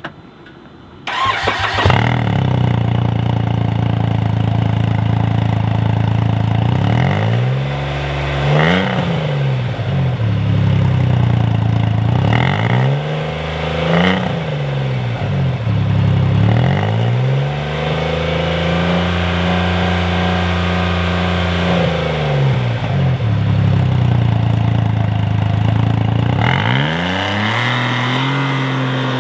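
Polaris Ranger 1500's three-cylinder engine breathing through an EVP center-exit aftermarket muffler: it starts about a second in and settles to idle. It is then revved several times: quick blips, a longer held rev in the middle, and another rev building near the end.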